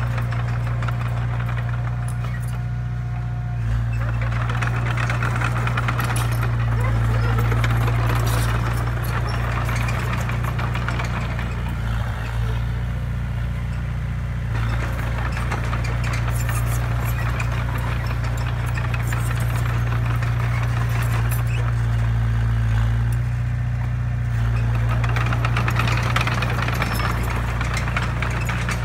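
Komatsu D20A crawler bulldozer's diesel engine running steadily with a deep hum as the dozer moves and pushes dirt, the engine noise swelling and easing a few times, with some rattling from the machine.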